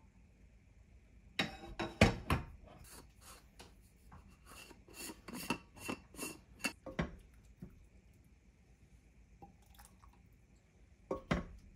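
Clinks and knocks of kitchenware as a glass pot lid and a food thermos are handled: a loud clatter about two seconds in, a run of lighter clicks after it, and one more sharp knock near the end.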